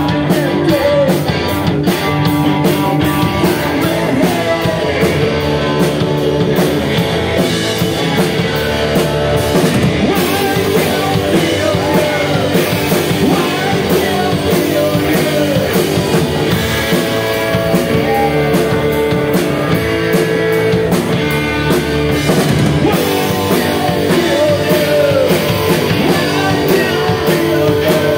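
Live rock band playing a song: two electric guitars, electric bass and drum kit keeping a steady beat, with a male singer.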